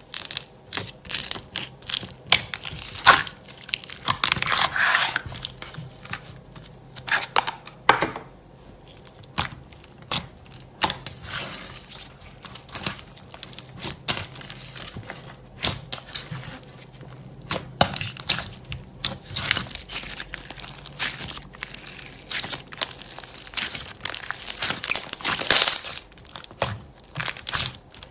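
Slime being squeezed, poked and stretched by hand, giving a continual run of sharp irregular clicks, pops and crackles.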